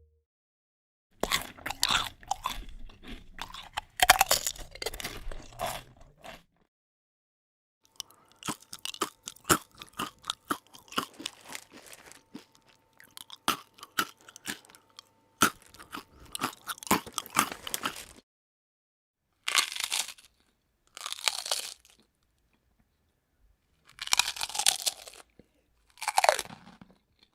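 Potato chips being bitten and chewed: dense, crisp crunching in several separate takes with silent gaps between them. The longer runs break up into many quick crackles, and near the end come four short bursts of crunching.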